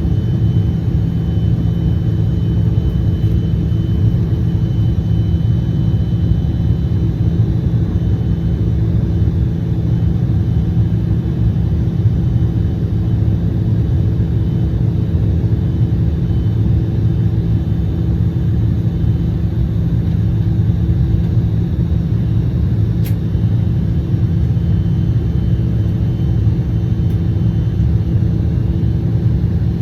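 Steady low rumble of airliner cabin noise inside a KLM Embraer 175, with a single faint click about three-quarters of the way through.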